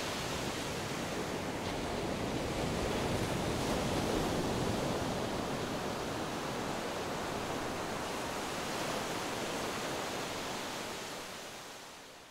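Ocean surf as a steady rushing wash of breaking waves, swelling a few seconds in and fading out near the end.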